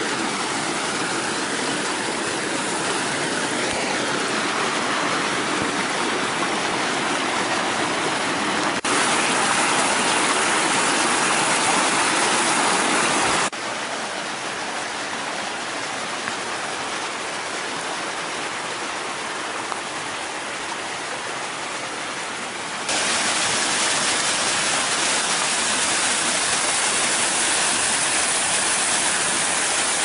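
Waterfall rushing: a steady hiss of falling water. It suddenly gets louder about 9 seconds in, drops back about 13 seconds in, and gets louder again about 23 seconds in.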